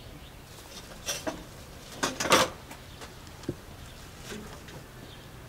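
A few short knocks and clatters of kitchenware being handled, the loudest a cluster a little over two seconds in.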